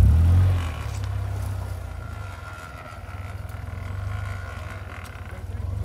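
Car engine running with a steady low rumble. It surges sharply loud at the very start and settles after about half a second.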